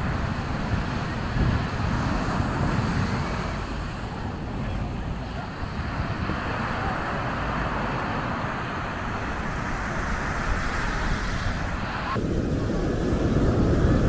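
Sea surf washing onto a sandy beach, a steady rushing hiss that swells and eases, with wind buffeting the microphone. About twelve seconds in, the hiss cuts off abruptly and a low rumble is left.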